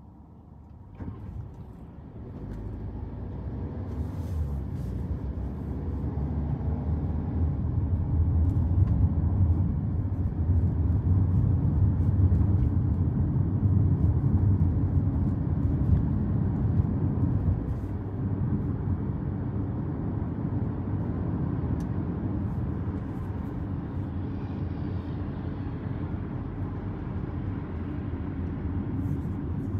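Car driving: low, steady road and engine noise that swells as the car picks up speed about two seconds in, then eases slightly and holds steady.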